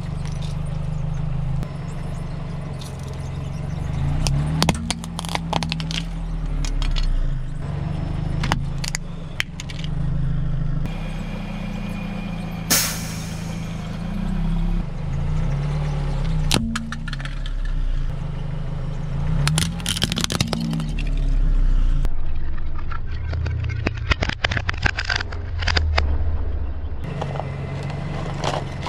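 Car engine running low as the car creeps forward, its tyre rolling over and crushing small objects: repeated cracks and crunches over a steady engine hum that shifts a little in pitch.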